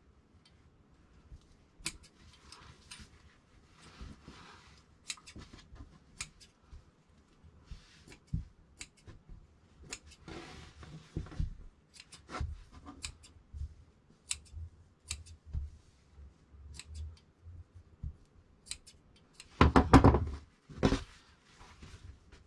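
Fabric shears cutting through jacket fabric along a pinned paper pattern: a series of crisp blade snips with soft sliding and rustling between them. Near the end comes a louder burst of handling noise as the cut pieces are picked up.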